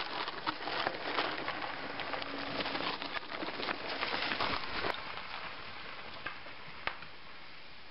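Mountain bike tyres crunching and rattling over a loose, stony trail: a dense crackle of gravel and stone clicks, a little quieter after about five seconds.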